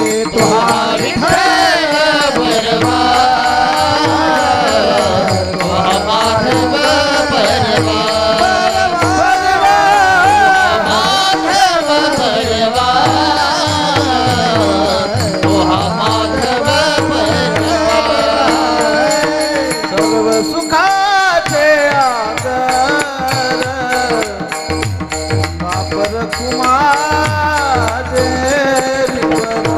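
Marathi Warkari bhajan music: a long wordless melodic vocal line over a steady drone, with rhythmic percussion accompaniment.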